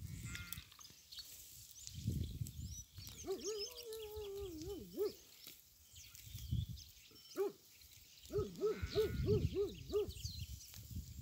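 Sheep bleating: a long call about three seconds in that wavers at its end, a short call, then a quavering bleat near the end.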